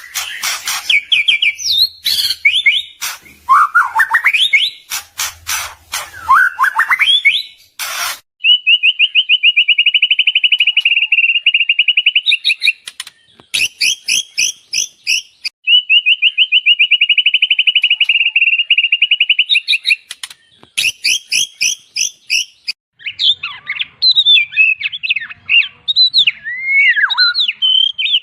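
White-rumped shama (murai batu) singing a loud, varied song. Quick whistled phrases and rising sweeps give way to two long, very fast trills of about four seconds each, with bursts of short notes between them. Near the end come varied swooping phrases.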